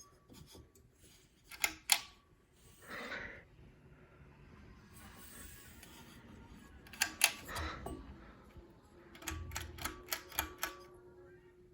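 Ceiling fan being handled and switched: a series of sharp clicks and rattles, with a run of quick clicks near the end as a faint steady motor hum comes in.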